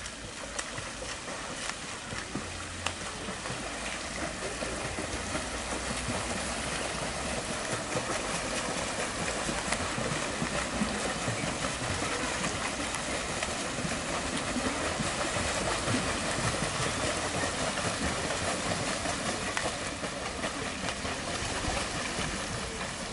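Continuous splashing of children kicking and swimming in a pool, building up over the first few seconds and then holding steady.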